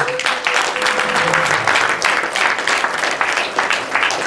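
Church congregation applauding: many hands clapping in a dense, steady patter.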